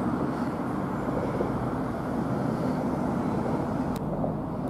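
Steady low outdoor rumble of night-time city background noise, with one short sharp click about four seconds in.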